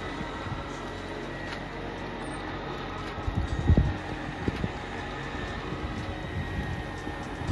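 Steady hum of the travel trailer's electric slide-out motor running, with one dull thump about three and a half seconds in.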